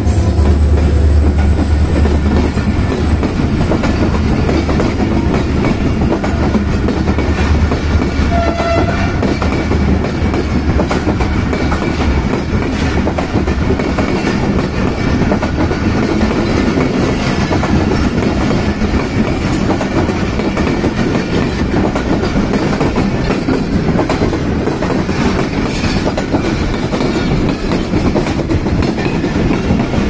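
Passenger train coaches passing close at speed, their wheels clattering steadily over the rail joints in a continuous clickety-clack. A deep rumble fades away over the first several seconds.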